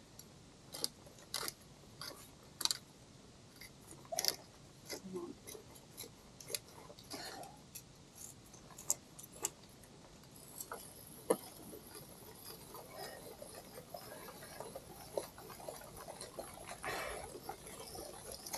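Ice-climbing gear clinking and tapping in irregular, sharp metallic clicks, with a faint high hiss coming in about halfway.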